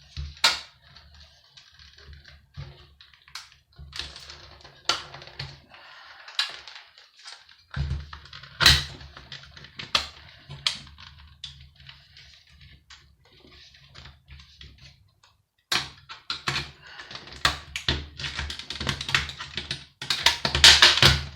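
Clicks, knocks and scraping of metal and plastic parts being worked loose with hand tools while a satellite TV receiver is dismantled. The scraping and clatter grow denser and louder near the end.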